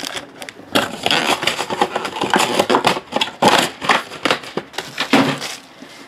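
Foil-wrapped trading card packs crinkling and rustling as they are handled and stacked, stopping near the end.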